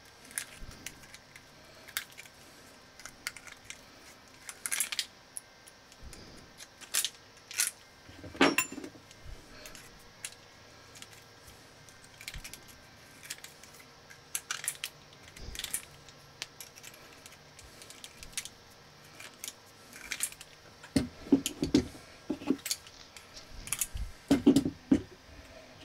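Short lengths of copper pipe being cut with a small hand-held tubing cutter: scattered light metallic clicks and clinks as the cutter is worked. A denser, louder clatter of metal near the end.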